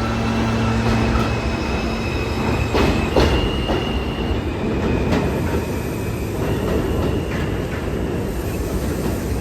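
R160A subway car running on the track, heard from inside: a steady rumble with wheels knocking over rail joints a few times and thin, high wheel squeal coming and going. A low motor hum dies away about two seconds in.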